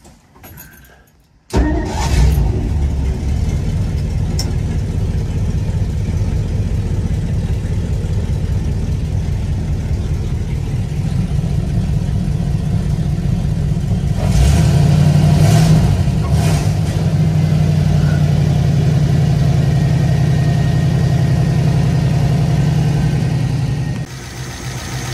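Studebaker Champ pickup's engine firing up about a second and a half in and then running steadily, louder for a few seconds about midway. It runs well on a fresh tune-up with new points, condenser and coil: it sounds really pretty good.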